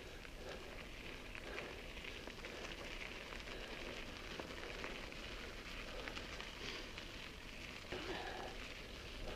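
Mountain bike tyres rolling over a stony dirt track: a steady crackle of small stones and grit under the wheels.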